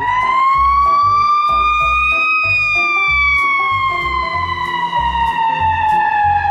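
An ambulance siren wails in one long tone that rises a little over the first two seconds and then falls slowly, over background music with a steady bass beat.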